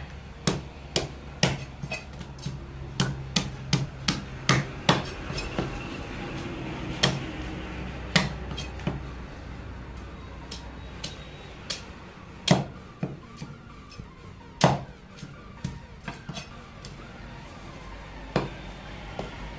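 A large knife scaling a rohu fish on a wooden chopping block: a string of sharp taps and clicks as the blade strikes the scales and the wood, quick at first and sparser later.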